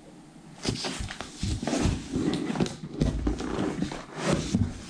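Crinkling and rustling of packaging being handled and unwrapped, with irregular crackles and soft knocks.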